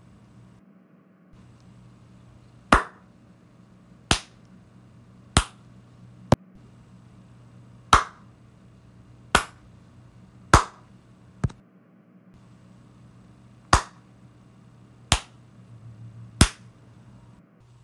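Hand claps, one sharp clap at a time, eleven in all, about every second or so with a few slightly weaker, over a faint steady hum.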